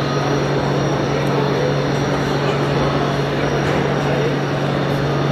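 Steady ambience of a large exhibition hall: a constant low hum with a murmur of background chatter.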